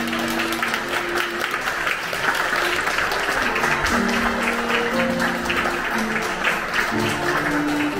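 A crowd of guests applauding, a dense steady clapping, over music of slow held notes.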